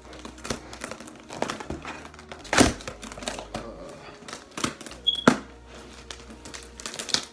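Cardboard shipping box being pulled open and the packing paper inside crumpled and rustled, irregular crinkling with a few louder rips. About five seconds in, a smoke detector gives one short, high chirp.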